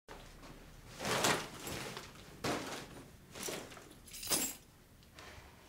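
Groceries and plastic bags being handled on a kitchen counter: four short rustles and knocks, the loudest about a second in and just after four seconds.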